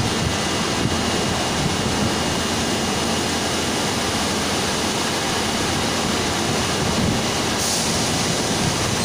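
Injection molding machine's hydraulic pump running, a steady loud mechanical hum and hiss mixed with the running noise of the plastics factory, as the machine is readied for purging.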